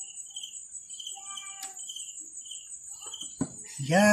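Crickets chirping: a steady high trill with a lower chirp repeating about three times a second. A couple of sharp knocks come a little after three seconds in.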